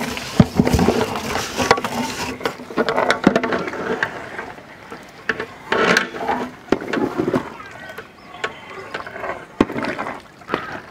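Raw jeerakasala rice pouring from a metal vessel into a large metal pot of boiling mutton broth, a dense patter of grains for about the first two seconds. Then a long metal ladle stirs in the pot, with scattered knocks against the pot and sloshing.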